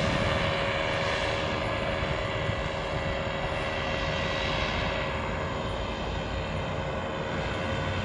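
Paramotor engine and propeller running in flight, a steady drone that holds one pitch throughout.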